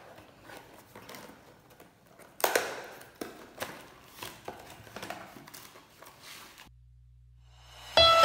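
Cardboard takeaway box and paper wrapping being handled and opened: scattered taps and rustles, with a louder crinkle about two and a half seconds in. Near the end the handling stops and music begins.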